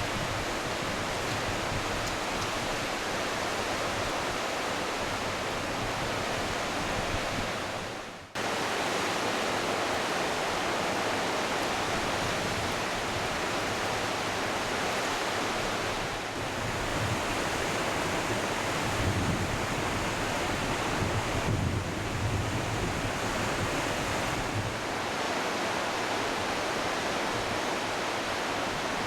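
Smith River in full flood: a steady rush of fast, high water. It briefly fades out about eight seconds in and cuts straight back in, with some low rumble of wind on the microphone later on.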